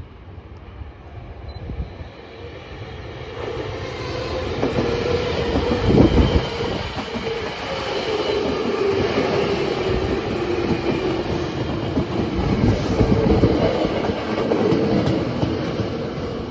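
Hankyu 5300-series electric commuter train arriving and running past, growing louder as it nears. A steady mid-pitched whine runs under the noise of the train, and the wheels knock heavily on the track, loudest about six seconds in.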